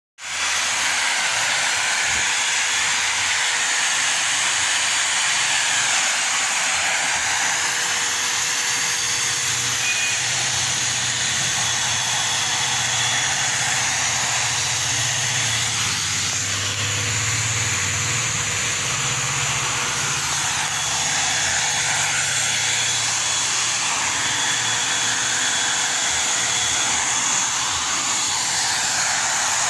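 Handheld car vacuum cleaner modified into a blower, running steadily: a thin motor whine over the rush of air from its nozzle. Its intake filter sponge has been removed so air goes straight through.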